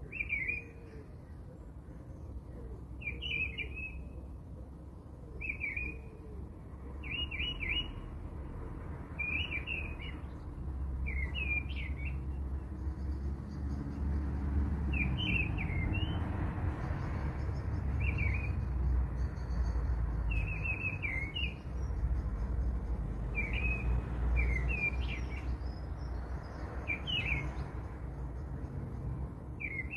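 A small bird chirping in short repeated phrases every two to three seconds, over a low rumbling noise that gets louder about halfway through.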